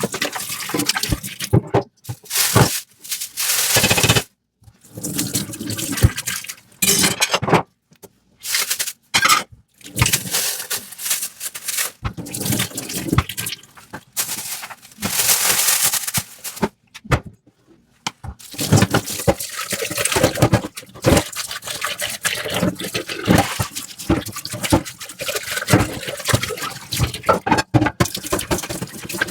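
Dishes being washed by hand at a kitchen sink: tap water runs in spurts of a few seconds onto the dishes, with short pauses between. In the second half comes an almost continuous run of clinks and knocks as the dishes are handled and scrubbed.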